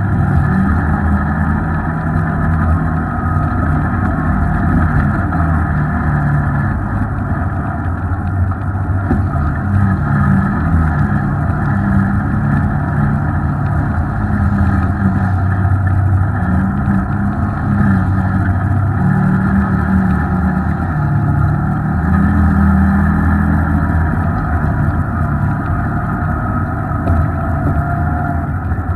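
Engine of an off-road vehicle running as it drives a muddy trail, its speed rising and falling again and again. The sound is muffled, with little treble.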